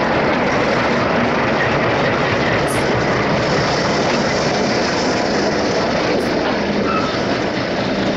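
Freight train running by at close range: a loud, steady noise of the locomotive and wagons on the track.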